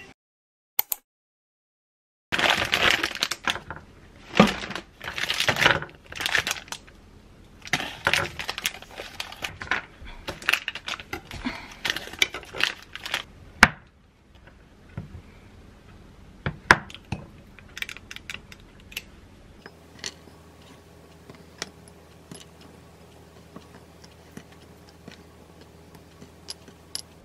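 Rustling and crackling of a protein-bar wrapper and a knife cutting the bars on a wooden board, a long run of dense handling noise. After that, sparse small clicks and taps as cubes are set into a glass dessert cup, over a faint low hum.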